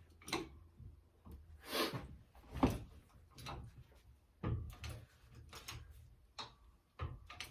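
Shop press being worked to force a pressed-on rotor off a motorcycle motor sprocket: scattered creaks and clunks of metal under load, the loudest about two and a half seconds in.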